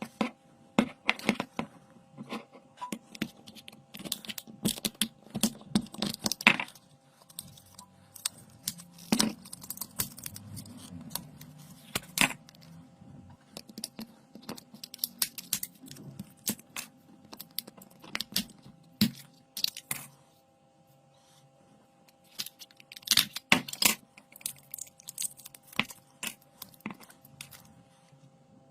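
Irregular clicks, taps and scraping of small hard objects being handled, over a faint steady hum; the clatter pauses briefly about two-thirds of the way through, then resumes.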